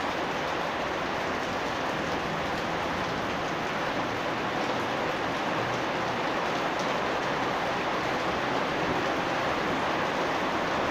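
Steady rain falling and pattering on surfaces, an even, dense hiss with scattered drop ticks.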